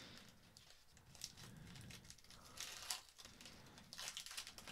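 Foil wrapper of a Pokémon trading-card booster pack crinkling faintly as it is torn open by hand, in several short rustles.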